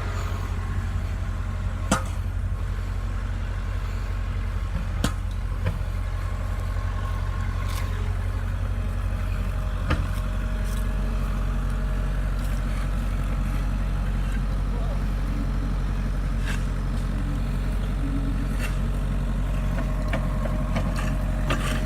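Heavy machinery engine running steadily at a low, even idle, with a few sharp clicks or knocks scattered through the first half.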